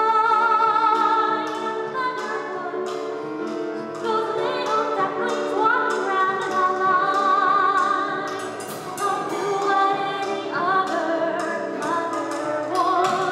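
Music: voices singing a show tune with accompaniment, the held notes sung with vibrato.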